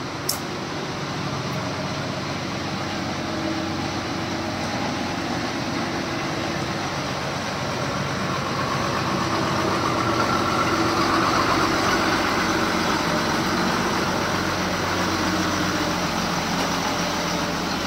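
A loaded lorry's diesel engine running steadily with road noise, growing a little louder around the middle, with a single sharp click near the start.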